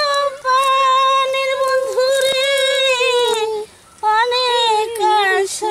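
A high-pitched voice singing long, held notes with slight bends in pitch, with no instruments, and a short break about three and a half seconds in.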